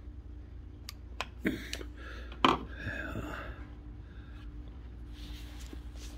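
Scattered light clicks and knocks of a motorcycle carburetor and small hand tools being handled while it is taken apart. The loudest knock comes about two and a half seconds in, over a steady low hum.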